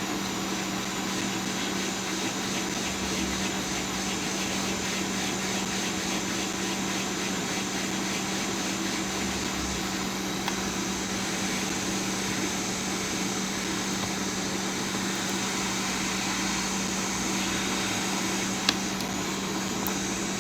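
Steady whirring noise of a fan or similar small motor, with a constant low hum under it. A single sharp click comes near the end.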